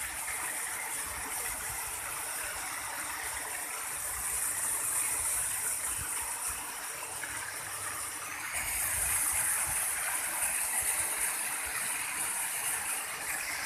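Steady rush of water from a rocky stream and a small waterfall, running and splashing over stones. The water grows louder a little past the middle.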